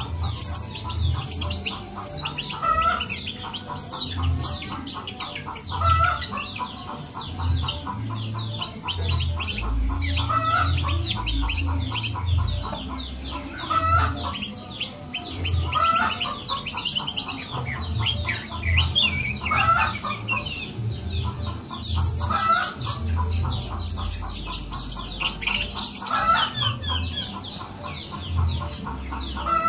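Long-tailed shrike (cendet) in full, continuous song: a rapid jumble of high chirps and whistles, with a lower bending call repeating about every two seconds, the mimicry of a cat's mew the bird is kept for.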